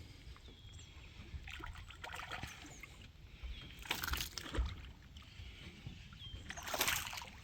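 Water splashing and sloshing in a few short bursts, about two, four and seven seconds in, faint over a quiet background.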